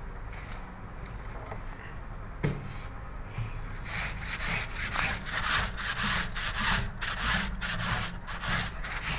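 Soapy wet jeans being scrubbed by hand on a concrete floor: rough rubbing that turns into a quick run of scrubbing strokes, about three a second, from about four seconds in. One sharp knock comes a couple of seconds before the fast strokes.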